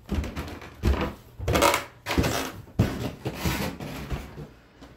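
Footsteps going down a staircase and onto a carpeted floor: a string of irregular thumps, mixed with rustling and rubbing from the phone being carried.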